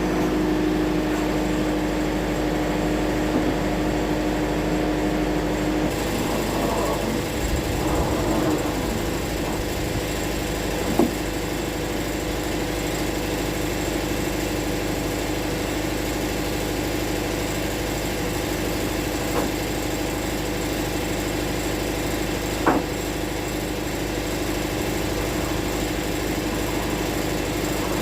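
Wood-Mizer LT70 sawmill running steadily, with two sharp knocks partway through.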